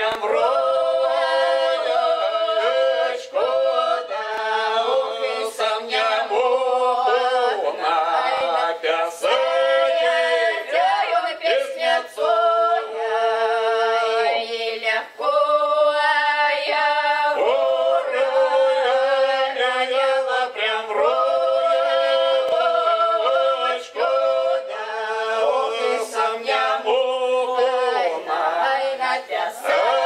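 Cossack folk ensemble of four women and a man singing a Cossack folk song unaccompanied in close harmony, in long drawn-out phrases with brief breaks between them.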